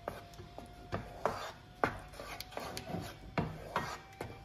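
Wooden spatula stirring thick curry gravy in a nonstick pan, with irregular scraping strokes against the pan bottom, roughly one or two a second.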